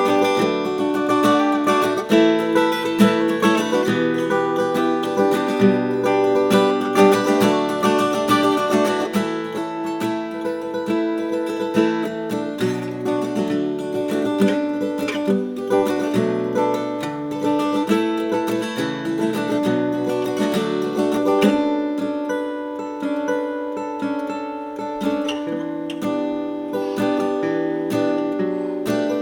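1959 Gibson LG2 small-body flat-top acoustic guitar being strummed and picked, chords ringing on without a break.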